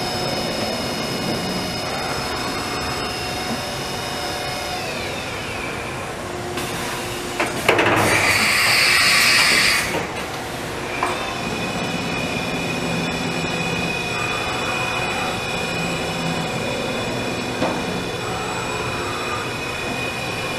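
Hurco VM-1 CNC vertical machining center running, with a steady high whine of several tones that slides down in pitch and fades about five seconds in. A loud hiss lasts about two seconds around eight seconds in. The whine then comes back steady and slides down again near the end.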